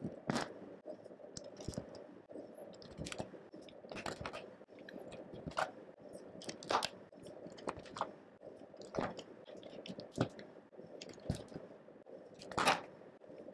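Small plastic building bricks handled and pressed onto studs by hand: irregular sharp clicks and snaps, with a louder snap near the end.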